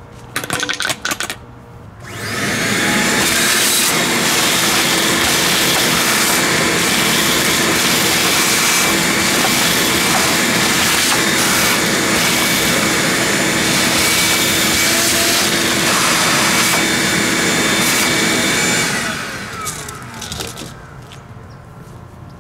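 A few quick clinks of hard pieces, then about two seconds in an electric motor spins up. It runs steadily with a whine over a loud rushing noise for about seventeen seconds, then winds down with a falling whine near the end.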